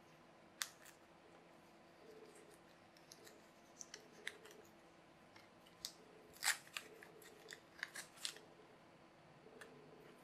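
Thin plastic protective film being peeled and crumpled off an acrylic spinner plate by hand: scattered crisp crackles and clicks, the loudest about six and a half seconds in.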